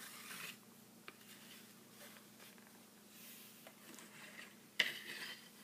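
Faint handling noise of action figures being turned and repositioned: a brief rustle, a small click about a second in, and a sharper click with more rustling near the end.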